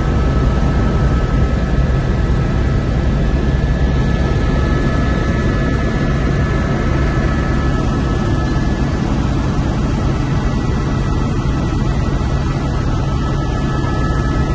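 Helicopter in flight heard from inside the cockpit: a steady low drone of rotor and turbine engine, with a faint steady high whine over it.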